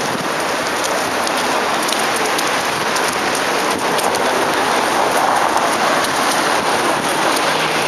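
Steady hiss of rain falling on wet pavement, growing a little louder through the stretch, with a faint low hum joining near the end.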